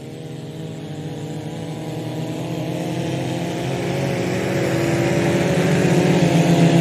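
Motor vehicle engine running at speed, its note holding a nearly steady pitch while it grows steadily louder, as if approaching fast.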